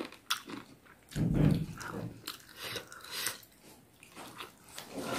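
A man chewing pork momo dumplings close to the microphone: wet mouth sounds with scattered short clicks, and a louder low sound about a second in.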